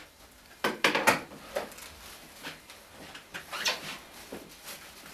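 Shoppers handling goods in a second-hand shop: a quick run of sharp knocks and clatters about a second in, then scattered lighter knocks and rustling.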